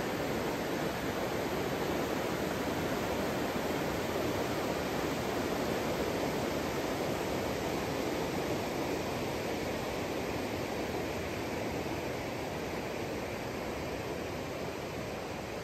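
Steady rush of river water, an even noise that eases slightly toward the end.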